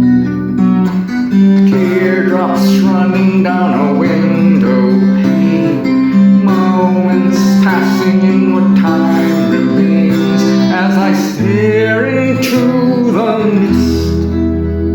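Music: a guitar-led instrumental passage of a song, with a melody line that slides between notes over held chords.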